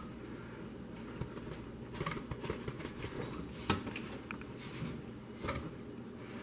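Metal loaf pan of a Cuisinart bread machine being handled with an oven mitt and turned over to knock the baked loaf out onto a wire cooling rack: a few light knocks and clicks of the pan and its wire handle, the sharpest about halfway through.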